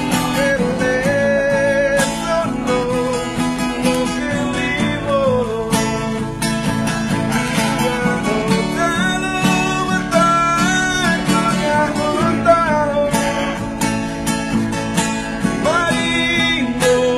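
A song: a voice singing a melody with vibrato over strummed acoustic guitar.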